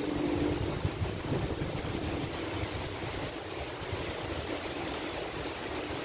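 Strong thunderstorm winds rushing steadily through the trees, with gusts buffeting the microphone.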